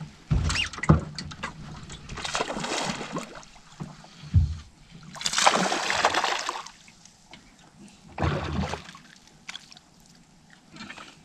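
A hooked bass splashing and thrashing at the water's surface in several bursts, the loudest about halfway through, with a few dull thumps in between.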